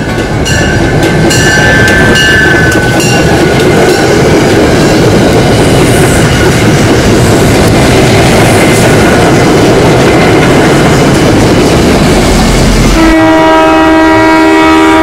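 Commuter train rolling loudly over the rails, a steady roar of wheels and undercarriage. About 13 seconds in the sound changes abruptly to a train horn holding a long chord.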